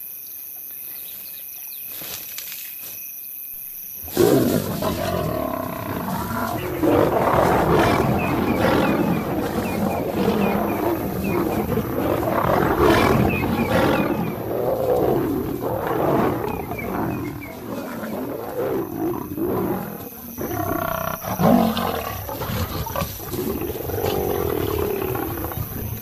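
Lions fighting: a nomad male lion and lionesses growling and roaring in an aggressive clash. The fight starts suddenly about four seconds in, after faint crickets chirping.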